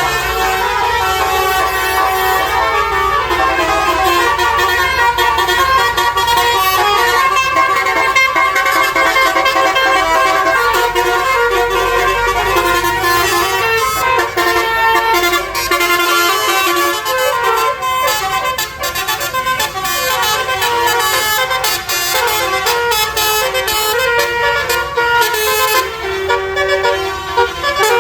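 Telolet basuri musical bus horns playing a tune: several horn notes sound together and step from pitch to pitch without a break. A low rumble underneath drops away about halfway through.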